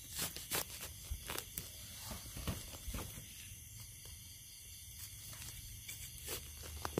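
Irregular rustling and crackling of dry leaf litter and twigs on a forest floor, from footsteps and hands searching for termite mushrooms. A steady high hiss lies underneath.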